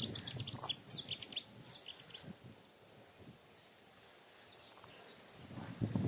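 Reed warbler singing a burst of quick, chattering high notes for about two and a half seconds, then falling quiet. A low rustling noise builds near the end.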